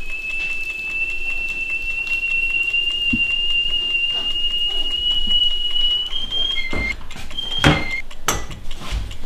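A stovetop kettle whistling on one steady high note that creeps slowly upward in pitch. After about six seconds it gives way to short alternating high and low tones. Near the end a glass is set down on a counter with a sharp clink and knocks.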